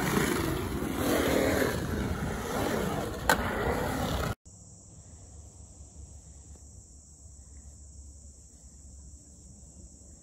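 Skateboard wheels rolling on concrete, with a sharp clack of the board a little over three seconds in. The sound cuts off abruptly about four seconds in, giving way to a much quieter steady high insect drone.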